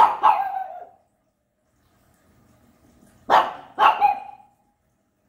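Japanese Chin barking angrily, two quick barks at the start and two more about three seconds later, each ending in a short falling yelp.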